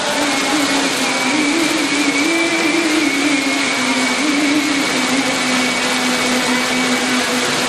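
Steady hiss of heavy rain, with a man's voice through a microphone holding one long, drawn-out note of Quran recitation that rises slightly, then slowly falls and holds.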